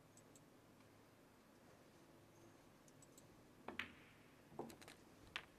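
Faint snooker ball clicks: the cue strikes the cue ball and balls knock together, three short sharp clicks under a second apart in the last two seconds, the first the loudest, over a quiet hall hush.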